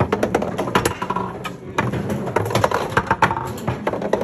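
Rapid, irregular clacking and tapping, hard little knocks one after another, with music playing behind.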